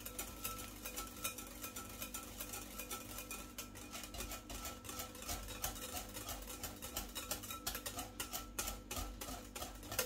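Wire balloon whisk beating yogurt in a glass bowl: rapid, rhythmic clicking and scraping of the wires against the glass as the yogurt is whisked smooth. Soft background music with a plucked-string sound plays underneath.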